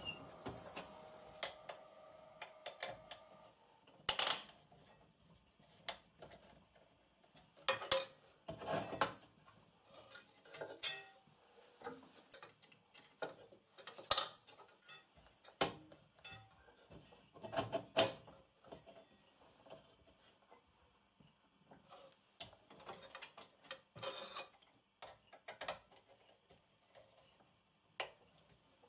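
Irregular clicks, taps and small knocks from handling a scroll saw that is not running: the workpiece shifting on the metal table and the blade clamp being worked, as when threading the blade through a drilled hole for an inside cut. A faint hum fades out in the first few seconds.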